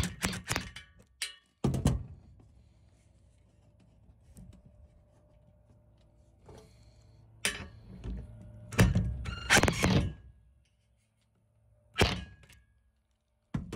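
Drill with a 10 mm socket driving self-tapping hex-head roof screws through an aluminium mounting foot into a metal roof, heard as several short bursts with clunks between them and faint stretches in between; the longest burst comes a little after the middle.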